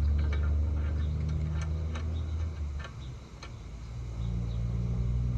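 Low engine rumble of passing road traffic that fades about three seconds in and then builds again, with scattered light clicks and taps.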